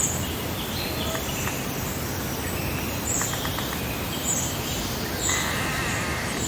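Meadow ambience: birds calling over a steady background hiss of breeze. A short high-pitched call repeats about once a second among other chirps, and a harsher, rougher call comes in about five seconds in.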